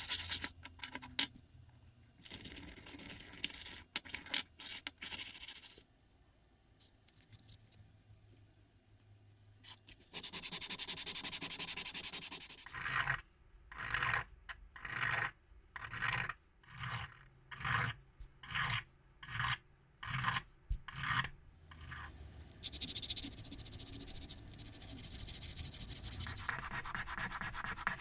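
Hand scraping and rubbing on metal padlock parts, in several short sections, with a run of about a dozen even back-and-forth strokes in the middle.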